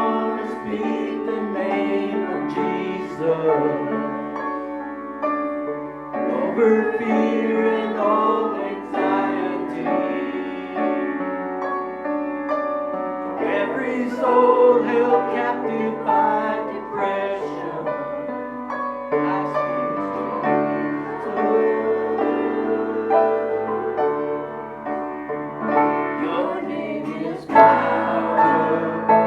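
Piano-led worship music playing an instrumental interlude between verses of a congregational song, with sustained chords.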